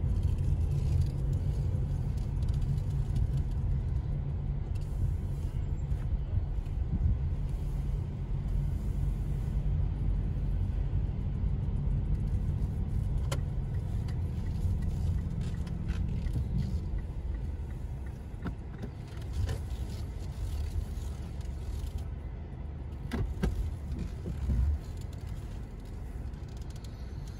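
A steady low rumble of engine and tyres inside a car's cabin while driving slowly. It eases off about two-thirds of the way through as the car slows almost to a stop, and a few light clicks come in the second half.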